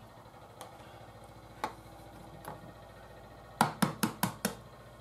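Raw egg tapped against the edge of a wooden board to crack its shell: about five sharp knocks in quick succession near the end, after a few light clicks earlier on.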